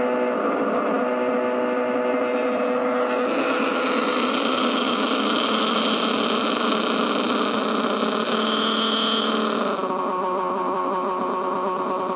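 Noise from a ProCo RAT and a Marshall Guv'nor distortion pedal chained into a Marshall mini-stack amp, with the guitar strings held silent: a loud, dense mass of steady tones that is not guitar feedback. The tones shift as a pedal knob is turned, about three seconds in and again near ten seconds in, with a high whistle for about a second just before the second change.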